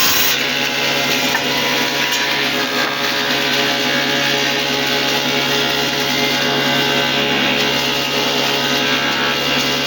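Power tool running steadily while working wood: a constant motor tone under continuous cutting noise, with no break.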